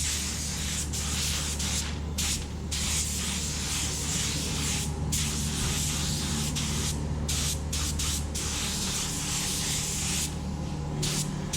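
Compressed-air paint spray gun hissing as it lays on a coat of epoxy primer. The trigger is released for brief moments several times, over a steady low hum.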